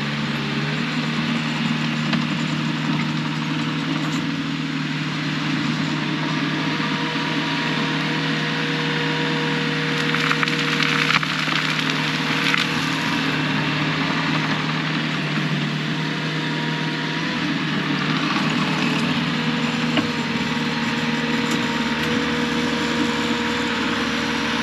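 Diesel engine of earthmoving equipment running steadily, with a dense crackling and crunching noise and scattered clicks over it.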